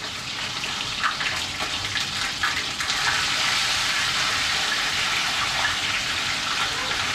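Whole seasoned fish frying in hot oil in a pan: a steady sizzle with small crackles and spits, growing louder over the first few seconds.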